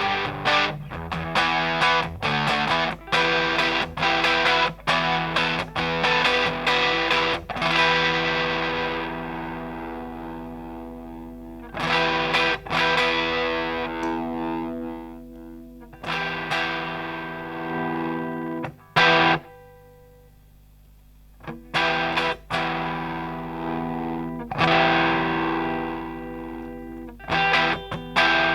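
Electric guitar played through a Grindcustoms Feng Drive overdrive pedal, giving a driven, distorted tone. Choppy chord strokes alternate with chords left to ring and fade, with a short pause about two-thirds through before the playing picks up again.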